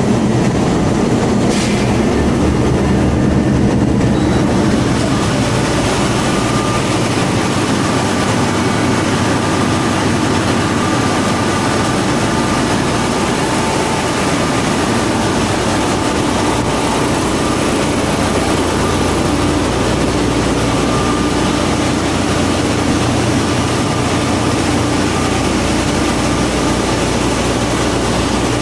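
Loud, steady machinery noise of an LNG carrier's engine room with dual-fuel diesel-electric propulsion: running engines and auxiliary machinery in a dense continuous din, with a few faint steady tones coming and going.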